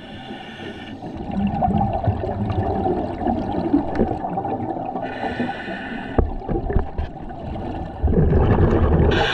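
A scuba diver breathing through a regulator underwater. Short hissing inhales come through the regulator about five seconds in and again near the end. Between them are longer bubbling, gurgling exhales, the loudest a low rumble of bubbles from about eight seconds in.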